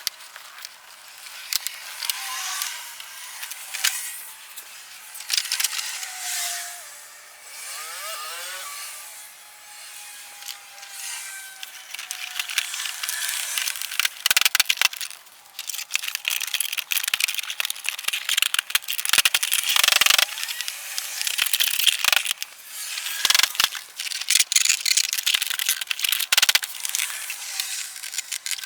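The plastic front bumper cover of a 2007 Lexus IS250 being refitted, with its fasteners being done up: scraping and rattling of plastic, knocks and clicks, and a few short squeaks early on. The clatter gets busier about halfway through.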